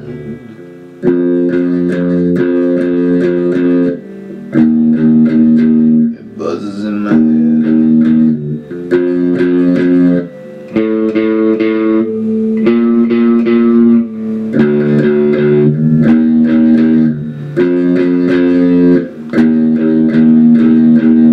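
Electric guitar playing held chords in phrases of one to three seconds, broken by short stops before each new chord.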